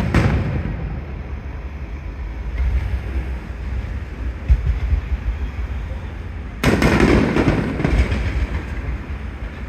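Aerial fireworks shells bursting: a decaying low rumble at the start, a smaller thud about four and a half seconds in, then a sudden loud boom about two-thirds of the way through whose rumbling echo trails off over about two seconds.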